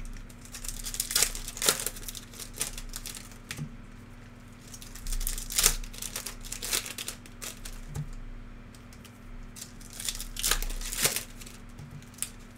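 Plastic trading-card pack wrappers being torn open and crinkled by hand, in a string of sharp, irregular crinkles and rips.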